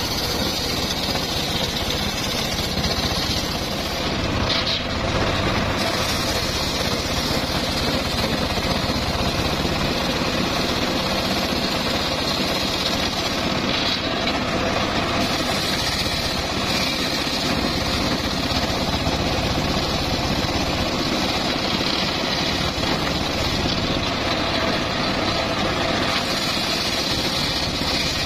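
Homemade table circular saw running continuously while its blade rips a hardwood log lengthwise. The cutting noise eases briefly a few times as the log is pulled back and pushed through again.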